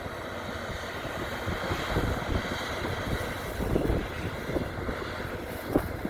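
Wind rushing over the microphone, a steady hiss with an uneven low rumble of gusts.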